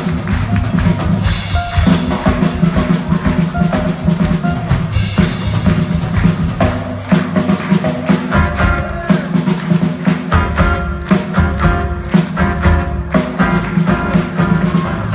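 Live band playing an instrumental stretch of a samba on drum kit, acoustic guitars and upright bass, with a busy drum beat.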